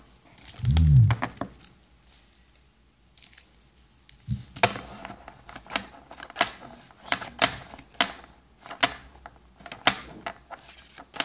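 Battle Spirits trading cards being flipped through by hand, each card snapping against the stack with a sharp click, about two clicks a second from partway in. A low thump about a second in.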